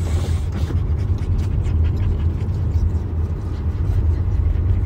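Steady low rumble of a car's cabin, engine and road noise heard from inside the car, with a short breath of exhaled smoke right at the start.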